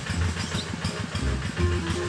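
Diesel engine of a two-wheel hand tractor chugging steadily as it pulls a cart loaded with sacks of corn. Background music plays over it, with a held note near the end.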